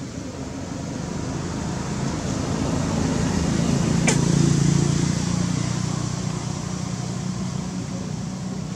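A motor vehicle passing by: a low engine hum that swells to its loudest about halfway and then fades. A single sharp click about four seconds in.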